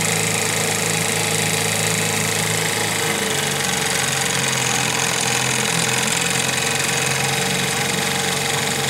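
Small Fisherman outboard motor running steadily at low speed, its pitch shifting slightly about three seconds in, with a steady hiss over it.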